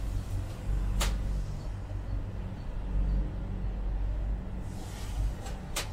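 Emirates Air Line cable car gondola riding in towards its station, heard from inside the cabin. A low steady rumble runs throughout, with two sharp clicks, one about a second in and one near the end.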